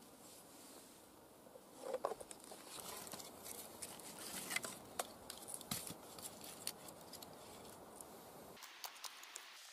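Faint rustling, with light knocks and scrapes of split wooden sticks being handled and laid on the forest floor, scattered irregularly over several seconds.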